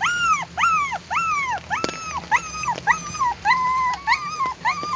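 Puppy whining and crying over and over, high-pitched cries that each rise and fall, two to three a second, turning into flatter, steadier whines near the end.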